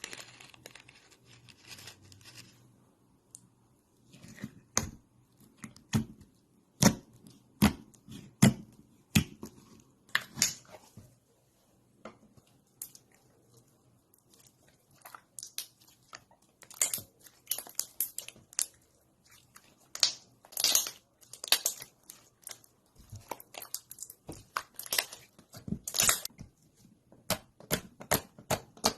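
Slime being pressed and stretched by hand, making irregular crackles and sharp pops. The pops are sparse at first and come thicker and faster from about halfway on.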